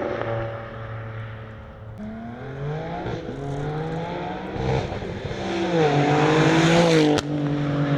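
BMW G82 M4's S58 straight-six through a titanium cat-back exhaust, accelerating in a flyby. The engine pitch climbs, dips briefly about five and a half seconds in, then climbs again to its loudest near the end, followed by a sharp click.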